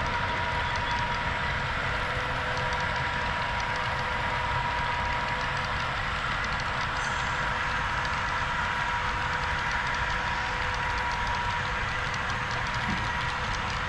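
HO scale model train running on the layout, its DCC sound decoder playing a steady diesel-engine sound over a constant whine.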